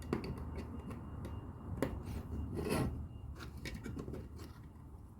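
LEGO plastic bricks being handled and fitted together: scattered small clicks with rubbing and rustling of the pieces.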